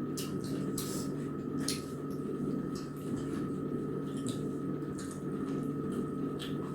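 People eating at the table: soft wet squelching of food being mixed and chewed, with scattered short clicks of hands or utensils on plates, over a steady hum.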